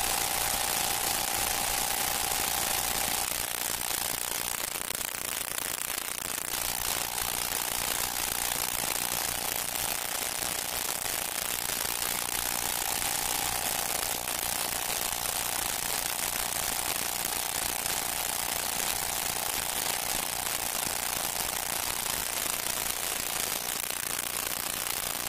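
Steady hiss with a thin steady whine running under it. The whine drops out for a few seconds near the start and then comes back.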